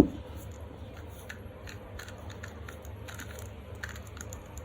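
Faint, irregular plastic clicks of a magnetic 2x2 speed cube being turned, with one sharp knock at the start.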